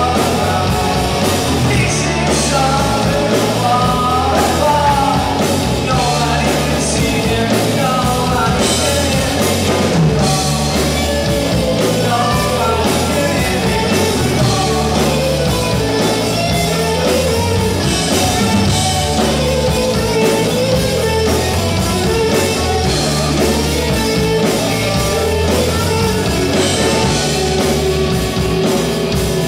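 A rock band playing live and loud: a man singing over electric guitars, bass guitar and a drum kit.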